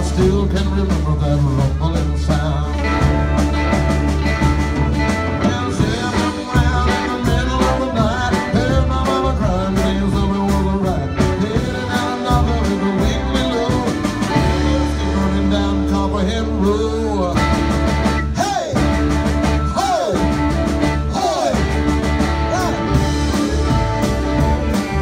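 Live rock band playing an instrumental break: electric guitars, bass guitar and drum kit, with a lead guitar bending notes several times in the second half.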